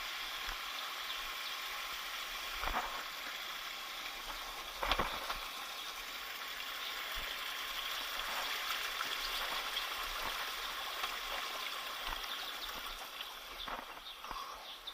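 Steady rush of a jungle stream flowing over rocks, with a couple of short knocks about three and five seconds in.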